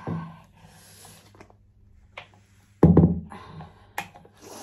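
Knocks and clanks from a large metal paint tin being lifted by its wire handle and tipped over a plastic roller tray, the loudest knock about three seconds in and a smaller one a second later, over a faint steady hum.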